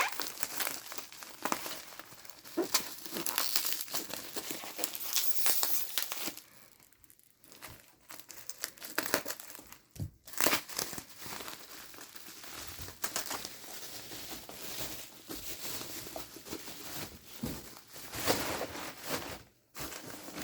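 Plastic packaging crinkling and rustling as it is unwrapped by hand. The crackling is busiest for the first six seconds or so, then turns sparser with a few sharper knocks.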